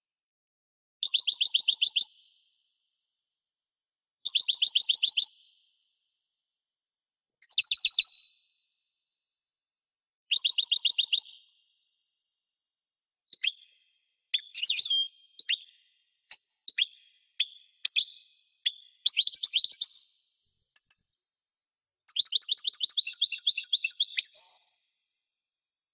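European goldfinch singing: four similar short, rapid trilled phrases about three seconds apart, then a quick run of separate twittering chirps, ending in a longer trill.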